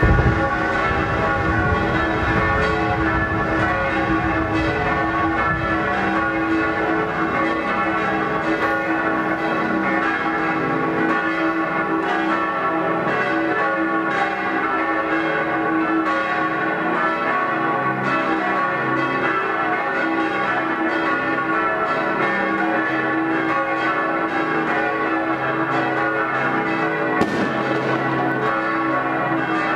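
Church bells pealing, many bell tones ringing together without pause. A firework bang sounds at the very start and another about 27 seconds in.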